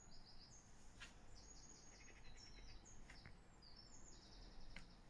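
Near silence, with faint repeated high bird chirps in the background and a few soft clicks from paper leaflets being handled.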